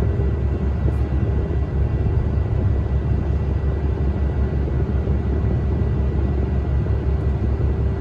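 Hydraulic excavator's diesel engine running steadily while the machine works, a constant deep rumble with a steady hum above it.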